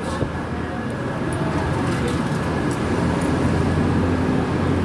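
Steady low rumble of a busy rail station concourse, with a few faint light clicks over it.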